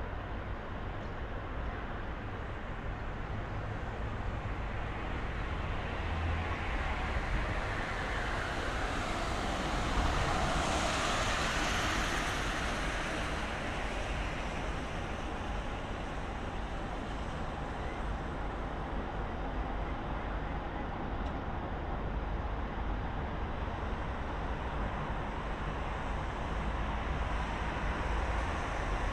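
Steady road traffic on a city street, with one vehicle passing close and swelling to its loudest around the middle before fading back into the background rumble.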